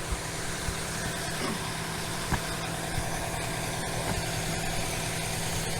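A patrol car's engine idling steadily close by, a low even hum, with a few light clicks.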